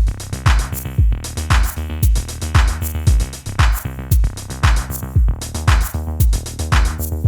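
Background music with a steady electronic drum-machine beat, about two kicks a second.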